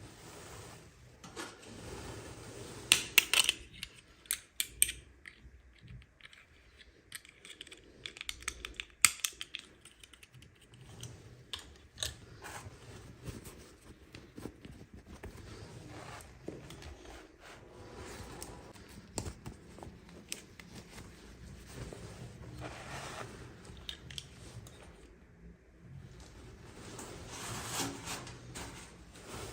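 Toy packaging being handled and opened: irregular sharp plastic clicks and taps with crinkling between them, the loudest clicks about three to five seconds in and again near nine seconds.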